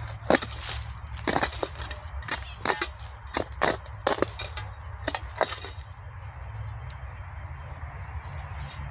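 A quick, irregular run of sharp clicks and taps for about five seconds, then quieter, over a steady low rumble.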